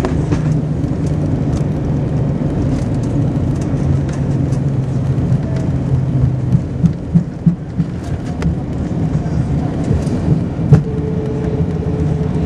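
Cabin noise of an Airbus A321-231 landing: steady engine and airflow rumble with a low hum. A cluster of thumps comes about halfway through as the wheels touch down, and a steady higher hum sets in near the end.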